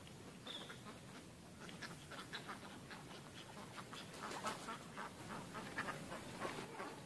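A flock of ducks calling faintly in short quacks, the calls coming thicker from about four seconds in.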